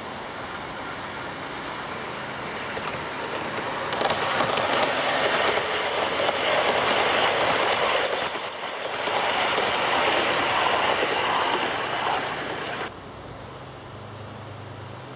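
O gauge model train of a diesel locomotive and passenger coaches running on outdoor track, a rolling clatter of wheels on rail that grows louder as it approaches and passes close. The sound cuts off suddenly near the end.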